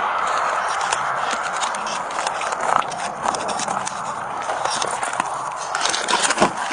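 Footsteps of a walking person, a run of irregular scuffs and clicks, heard close from a chest-worn body camera that knocks and rubs as the wearer moves.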